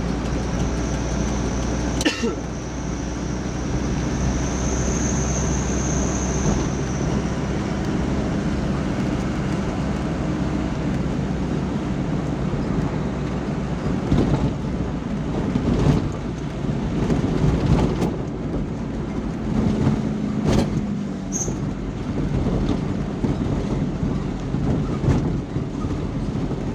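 Truck on the move: engine running steadily with road noise, and a few knocks and rattles along the way.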